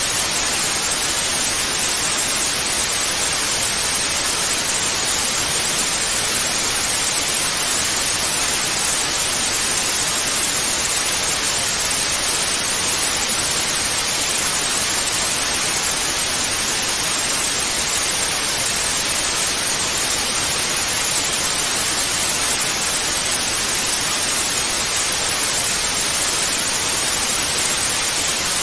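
Analogue TV static: a steady, even hiss of white noise that does not change, strongest in the upper range.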